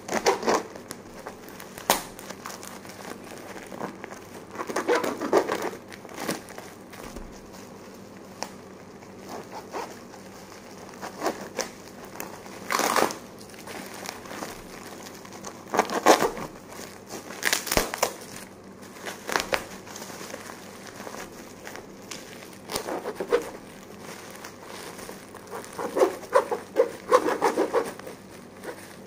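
Plastic courier packaging crinkling and tearing as a parcel is opened by hand, in irregular bursts with a few sharp rips.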